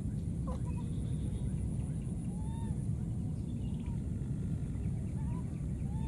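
Outdoor ambience: a steady low rumble, with faint short rising-and-falling calls scattered through it every second or so.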